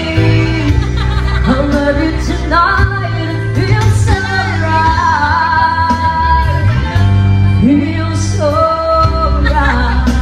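A boy singing into a handheld microphone over backing music with guitar, his voice high and gliding between held notes.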